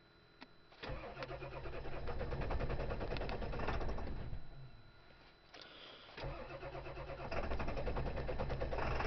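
Cold diesel engine cranked on the starter motor twice, each spell lasting about three and a half seconds with a fast even chugging, without catching. This is a failed cold start below freezing. A short click comes just before the first crank.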